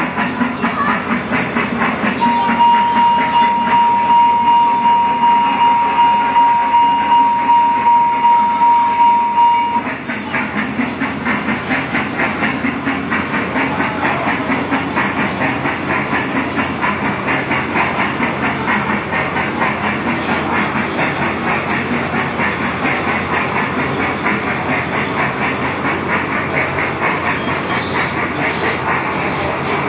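Thomas the Tank Engine kiddie ride train running, with a steady rhythmic pulsing of roughly one to two beats a second. A long single steady tone sounds for about eight seconds near the start, then stops abruptly.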